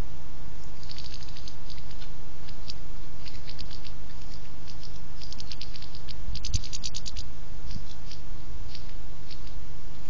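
Goldfinches pecking and cracking seed at a hanging seed feeder: irregular clusters of small sharp clicks, busiest about six to seven seconds in, over a steady low hum. A dull thump about six and a half seconds in.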